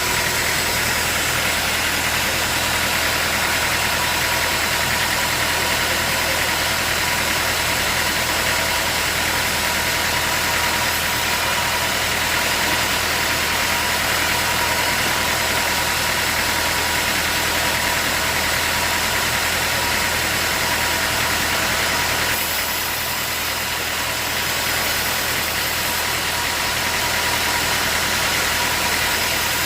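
Sawmill machinery running steadily: a motor's hum with a steady high whine and hiss. It eases off slightly about 22 seconds in and comes back a few seconds later.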